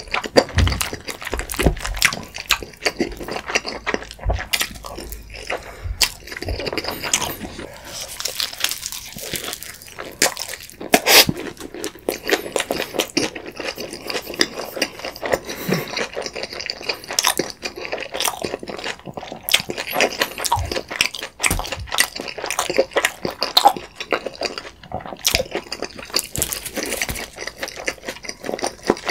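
Close-miked chewing of creamy pasta and pizza: wet mouth sounds with crunches of pizza crust and many small sharp clicks, going on throughout without a break.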